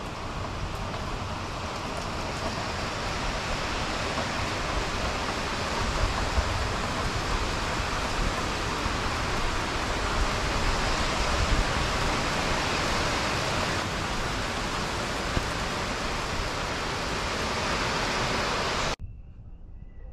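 Heavy rain pouring down in a storm, a dense, steady hiss. About 19 seconds in it cuts off abruptly, leaving a much quieter outdoor scene with a few faint high chirps.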